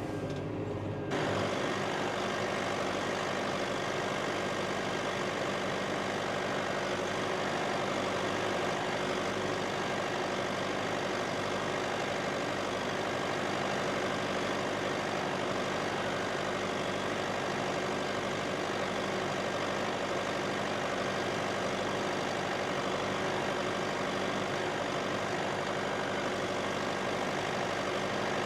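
Massey Ferguson tractor engine running steadily under the load of ploughing, heard from inside the cab as an even drone with a few steady tones. It gets a little fuller and louder about a second in.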